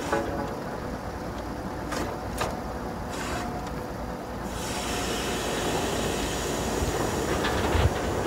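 Truck-mounted borewell drilling rig running steadily with a deep machine drone. Two sharp clicks come about two seconds in, and a hiss grows louder from about halfway through.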